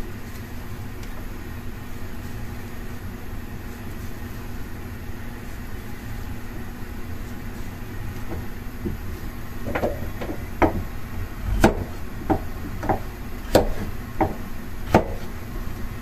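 A steady low background hum, then from about ten seconds in a kitchen knife knocking on a plastic cutting board in a string of separate strokes, roughly one every half second to second, some with a short ring, as a vegetable is cut.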